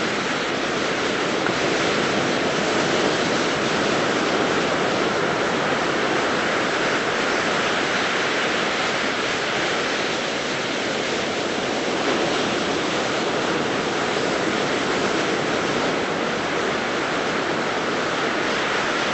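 Ocean surf washing onto a beach: a steady, continuous rush of breaking waves.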